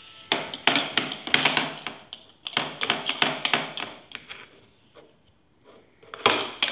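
Rapid tapping and clattering on a toddler's plastic high-chair tray, in quick runs of many taps. Two runs of about a second and a half each come early, then a quieter stretch, then a loud burst near the end.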